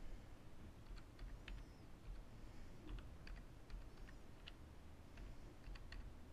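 Computer keyboard being typed on, faint: about a dozen short keystrokes at an uneven pace, over a low steady hum.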